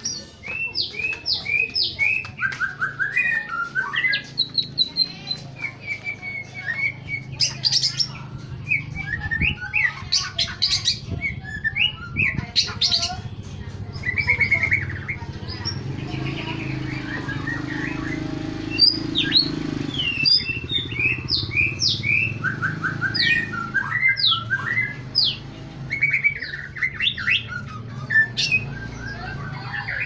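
White-rumped shama singing a long, varied song of quick whistled phrases and trills, broken by short pauses.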